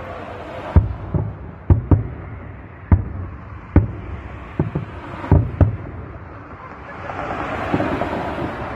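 Aerial fireworks shells bursting overhead: a string of about ten sharp bangs in the first six seconds, some in quick pairs, each trailing off briefly. A rushing noise swells near the end.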